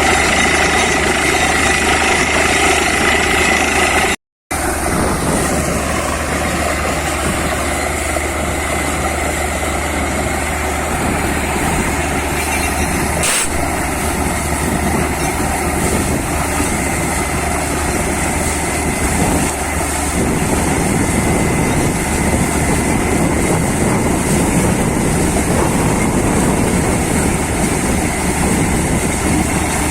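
Borewell drilling rig running steadily under load, a loud, constant machine noise with a low hum underneath. The sound cuts out for a split second about four seconds in.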